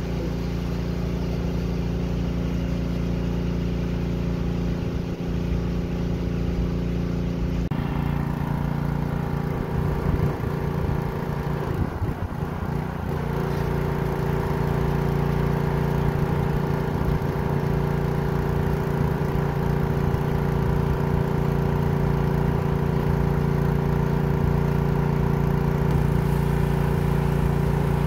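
PowerStroke gas pressure washer's small engine running steadily under load. Its note shifts about eight seconds in, wavers a few seconds later, and then settles.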